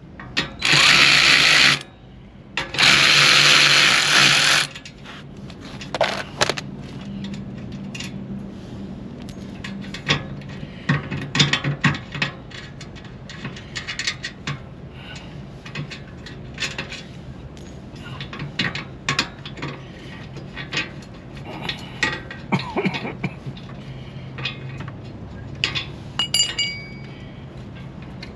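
A power tool runs in two loud bursts near the start, about one and two seconds long, spinning off the exhaust mount nuts. After that come scattered clicks and clinks of tools and metal parts being handled.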